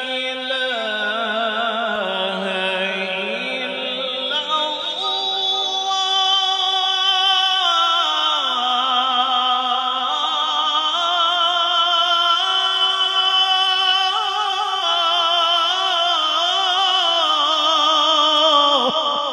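A man reciting the Quran in the melodic qirat style, drawing out long, ornamented, wavering vowels. His pitch climbs about five seconds in, and the phrase breaks off near the end.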